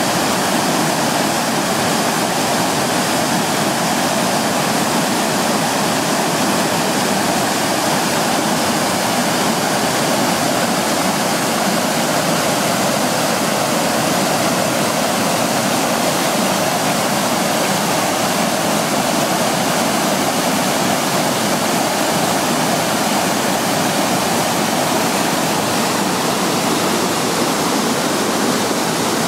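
Water of the Tanew river flowing steadily over its low rock-ledge cascades (the 'szumy'), an even rushing with no breaks.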